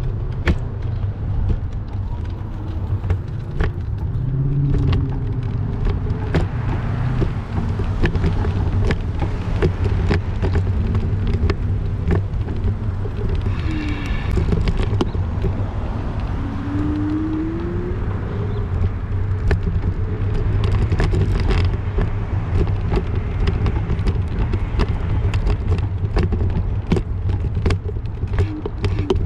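City street traffic: cars running and passing, over a steady low rumble, with a brief high squeal about halfway through.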